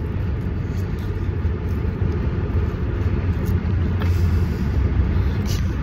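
Steady low rumble of a car driving on the road, heard from inside the cabin.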